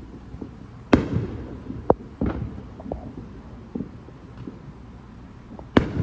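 Aerial fireworks exploding: a string of sharp bangs, the loudest about a second in and again just before the end, with smaller pops between and a low rumble trailing after the big ones.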